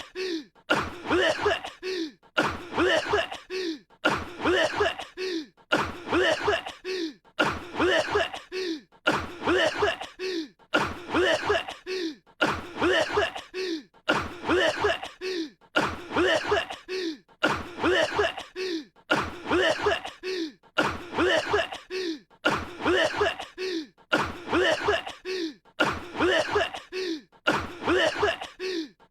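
A voice coughing over and over, one short voiced cough about every second in a very even rhythm: a cartoon character's cold-ridden cough.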